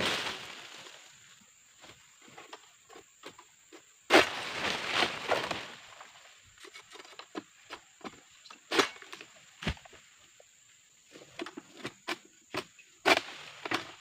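Oil palm fronds being cut high in the crown with a long-pole egrek sickle. Twice a cut frond crashes down through the leaves with a loud rustling crash of a second or so. Sharp knocks and scrapes of the blade against the frond stalks come in between.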